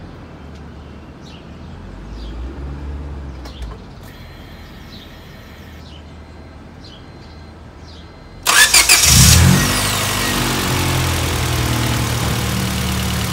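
About eight and a half seconds in, the B16A2 four-cylinder of a 1999 Honda Civic Si starts: quick cranking pulses, a brief flare, then a steady idle. It is heard close to its open velocity-stack short ram intake.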